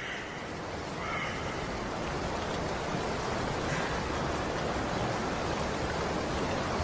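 Steady rush of flowing water, swelling slightly about a second in and then holding even.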